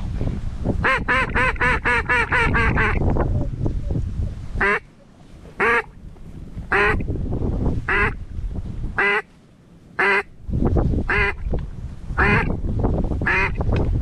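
Hen-mallard quacking: a fast run of about ten quacks, then single quacks about one a second, over a low rumble.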